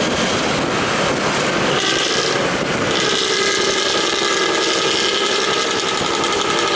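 Intercity bus with a growling 'ngorok' exhaust running loud. About two to three seconds in, a steady sound of several held tones rises over it and holds.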